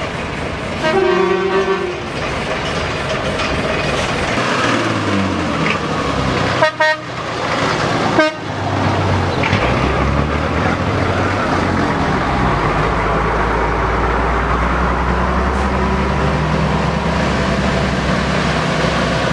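Heavy classic diesel trucks driving past in a slow convoy, with a truck horn sounding briefly about a second in. From about ten seconds on, a truck's diesel engine runs close by with a deep, steady rumble.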